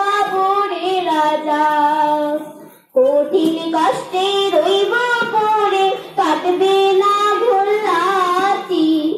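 A woman singing a Bengali song solo into a microphone, with long held notes that waver in pitch. There is a short pause for breath about three seconds in.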